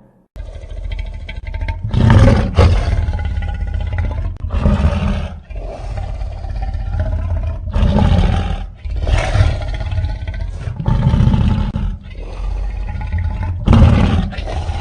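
Giant-monster roar sound effects of the kind Toho uses for its kaiju, in a string of about six long, wavering roars with short breaks between them.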